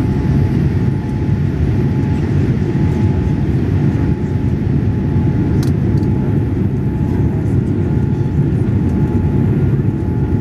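Cabin noise inside a Boeing 787-8 Dreamliner climbing after takeoff: a steady, deep roar of engines and airflow, with a faint steady tone above it.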